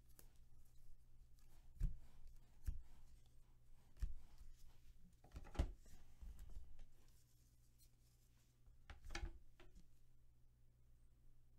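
Sports trading cards being handled and sorted on a table: faint sliding and rubbing of the cards, with several soft knocks as cards and plastic card holders are set down, over a low steady hum.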